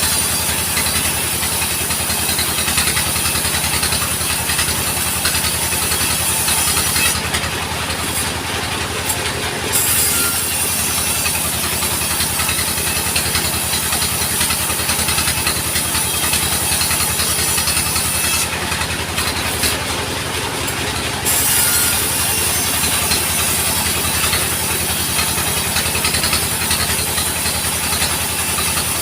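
Sawmill band saw and its drive engine running steadily, with an even engine throb underneath and a high hiss from the blade. The hiss drops away twice, for about two to three seconds each time, about a third and two-thirds of the way through.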